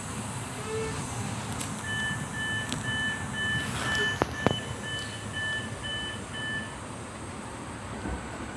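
Train door-closing warning: a regular series of short, high two-pitch beeps, about two and a half a second for some five seconds, over the low rumble of the standing train, with two sharp clicks midway.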